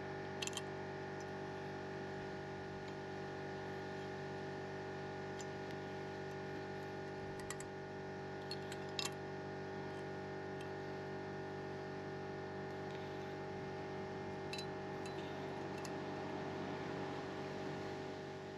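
Metal brake pad clips being pressed onto a caliper carrier, giving a few short clicks, over a steady machine hum.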